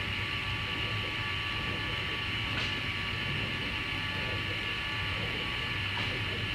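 Steady hiss of an air-powered fiberglass spray-up gun spraying resin and glass onto a tank, over a constant low machine hum.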